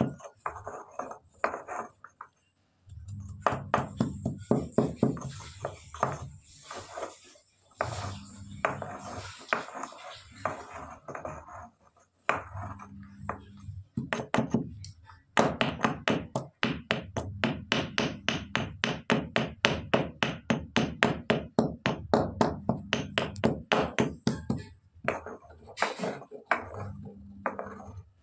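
Stone mortar and pestle pounding black pepper and cumin seeds: quick thuds of the stone pestle, about four a second at their fastest, in runs with short pauses between them.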